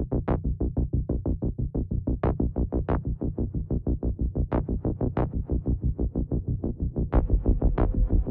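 Electronic music: a fast, even synthesizer pulse of about six or seven beats a second with occasional brighter accents. A heavier bass layer comes in about seven seconds in, and the music gets louder.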